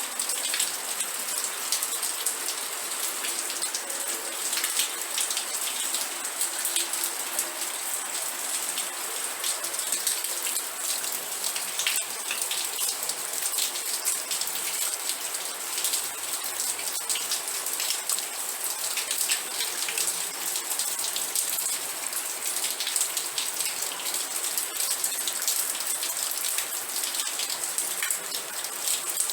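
Steady rain, with many fine drops pattering on a surface.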